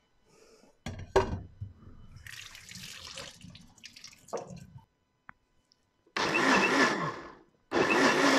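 Electric kitchen blender blending grated beetroot with orange juice, switched on in two loud bursts in the second half, the second still running at the end. Before that, a few knocks and a stretch of rustling handling sounds.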